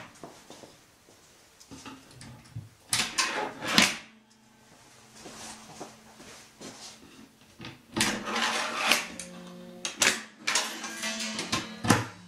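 Plywood tabletop panels being slid out of a wooden box frame: wood scraping along wood in a few bursts, about three seconds in, around eight seconds and again near the end, with sharp knocks as the panels are moved and stopped.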